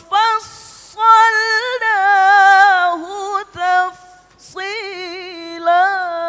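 Melodic Qur'an recitation (tilawah): a single unaccompanied voice holds long, ornamented notes with a wavering pitch, in short phrases broken by brief pauses.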